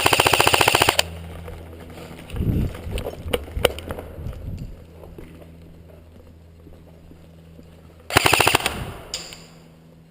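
Airsoft gun firing full-auto bursts, a rapid rattle of shots. One burst runs through the first second, and a shorter one comes about eight seconds in. Between the bursts there are some low thumps and a few sharp clicks.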